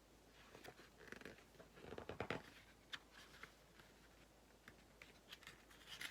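Near silence with faint rustling and a few small clicks, loudest about two seconds in.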